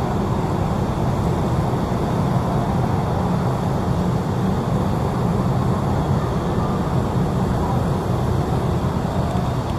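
Steady, unbroken low vehicle rumble with no distinct events.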